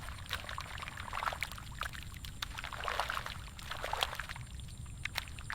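Shallow paddy water splashing and sloshing around feet and hands in the mud, as a run of small irregular splashes and clicks over a steady low rumble.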